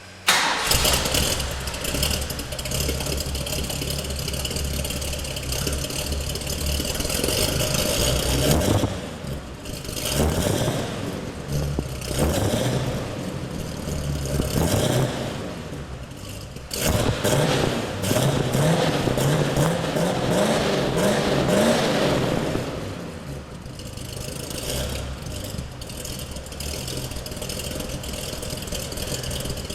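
1970 Ford Mustang's 351 V8 idling and being revved several times, the pitch climbing and falling back with each blip; an unrestored engine that the owner says runs a very rich mixture and needs a total rebuild.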